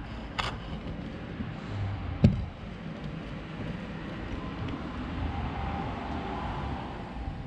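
Steady low outdoor rumble of distant traffic, with a sharp click about half a second in and a louder single knock a little past two seconds.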